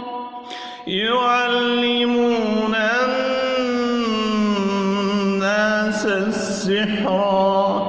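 A man reciting the Quran in a slow, melodic chant, holding one long drawn-out phrase with a wavering pitch. It comes in about a second in, after a brief breath.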